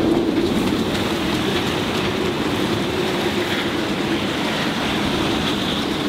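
Steady rush of strong wind and rough waves around a sailing yacht under way at sea, an even noise with no single event standing out.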